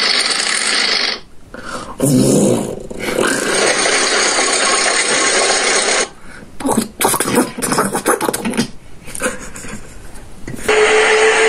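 A person imitating a car engine with their mouth: rough, breathy vocal noises in several bursts with short breaks.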